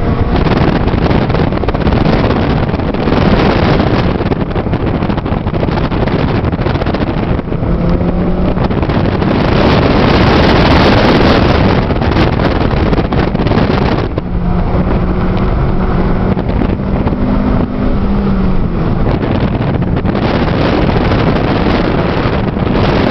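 2008 Honda Civic Si's 2.0-litre four-cylinder engine running hard at track speed, heard from inside the cabin mixed with wind and road noise. It is loudest about ten seconds in and eases from about fourteen seconds.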